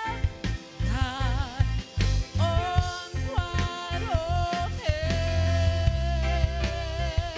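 Gospel worship music from a live band: keyboard, bass and drums keeping a steady groove, with a held, wavering melody line on top.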